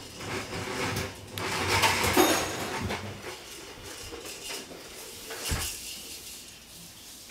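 Plastic toy baby push walker rattling and clattering as it is pushed along, busiest in the first three seconds, with a single knock about five and a half seconds in.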